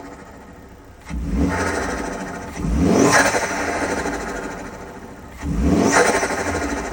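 Volvo S60 T5's turbocharged five-cylinder engine revved in three throttle blips, each rising quickly and then falling away, with turbo flutter as the throttle snaps shut.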